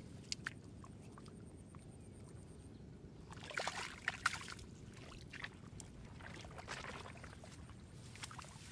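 Shallow water splashing and sloshing in two short bursts, the louder about three and a half seconds in and a weaker one near seven seconds, with a couple of sharp clicks just after the start.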